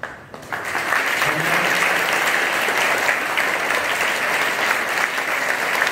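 A large audience of school students clapping, starting about half a second in and going on steadily.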